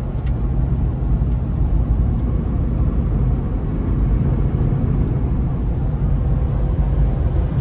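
Steady low rumble of road and wind noise inside a Toyota SUV's cabin while driving, tyres running on a road with a thin layer of snow and ice and a strong crosswind rushing around the doors.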